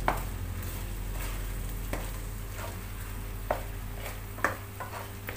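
A wooden spatula stirs a thick tomato and rice mixture as it sizzles in a nonstick pan. The spatula knocks against the pan about four times.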